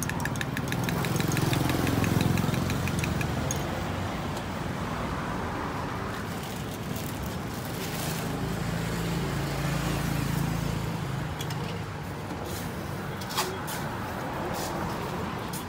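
Street traffic: vehicle engines rumbling past, swelling in the first few seconds and again midway. A rapid run of light, even ticks comes at the start, and a few sharp clicks come later.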